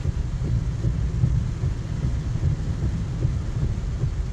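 Steady low rumble heard from inside a car's cabin as it drives slowly through heavy rain on a flooded street: engine and road noise mixed with the rain on the car.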